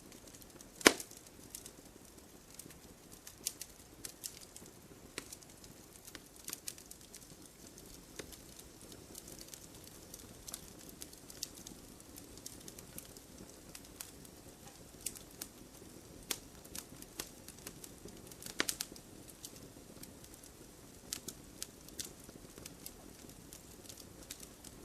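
Wood fire burning in a fireplace, crackling with scattered sharp pops and snaps over a faint low rush of the flames. One louder pop comes about a second in and another about three-quarters of the way through.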